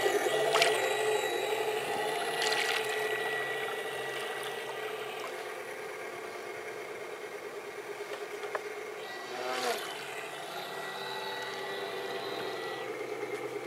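RC model fire boat's motor running with a steady buzz and a thin high whine, fading as the boat moves away across the water.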